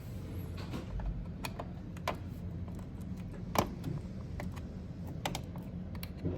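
Irregular light clicks and taps from small objects being handled, the sharpest about three and a half seconds in, over a low steady hum.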